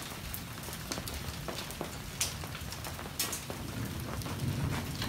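Thunderstorm rain falling steadily, with many scattered sharp ticks of drops striking hard surfaces.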